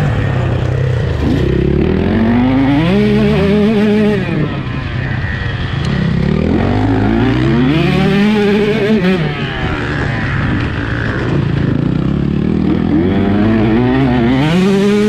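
Motocross bike engine revving hard on the track, its pitch climbing, holding briefly and dropping back three times as the throttle is opened and shut.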